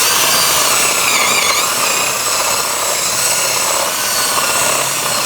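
Power drill running steadily with a continuous whine.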